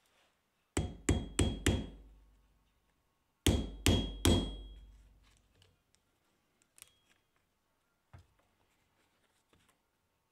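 Ball-peen hammer striking a rivet set into a leather sheath on a small steel anvil: four quick blows, a pause, then three more, each with a brief metallic ring. A few faint clicks follow.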